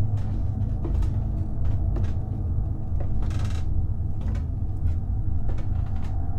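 A steady low droning rumble with sustained low tones, broken by scattered sharp clicks and knocks and a brief hiss about three seconds in.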